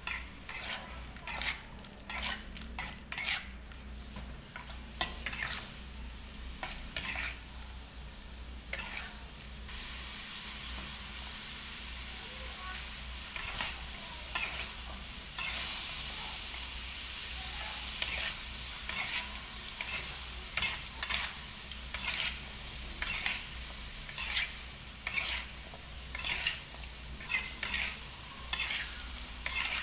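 A spatula stirring and scraping in a metal wok, pork and chili peppers stir-frying over a steady sizzle. The scraping strokes come about one or two a second, and the sizzle grows louder about halfway through.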